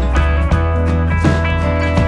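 Background music: a steady beat with bass and plucked guitar.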